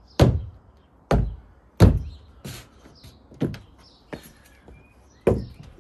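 Boot footsteps on a newly laid chipboard floor over a timber joist frame: about eight heavy, irregular thuds as it is walked across to check it is solid.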